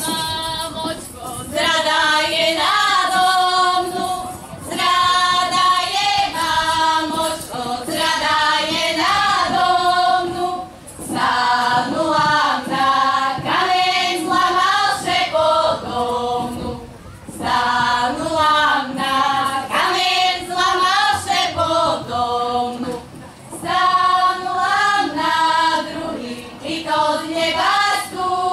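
A group of women singing a Slovak folk song together in high voices, phrase after phrase with short breaks for breath between.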